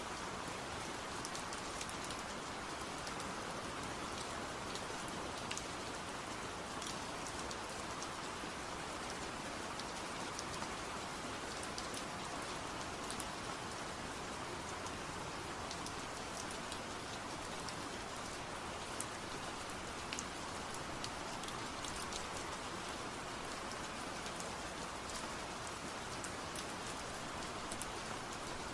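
Steady rain falling, a constant hiss of rain with many small scattered drop ticks on a surface.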